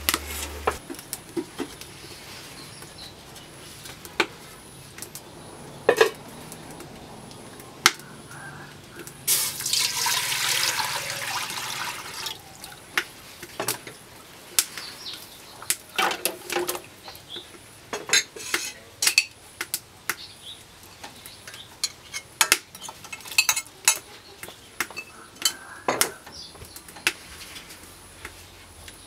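Kitchen handling sounds: scattered clicks and knocks of bowls, utensils and an aluminium pot. About nine seconds in comes about three seconds of water pouring, likely into the pot.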